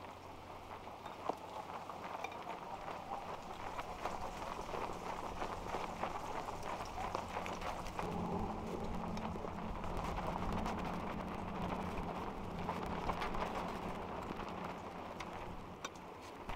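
Mala hotpot broth heating in a steel pot on a portable gas stove, with dense, fast crackling and popping from the chilli-oil broth. It grows louder and busier a few seconds in, over a faint steady low hum.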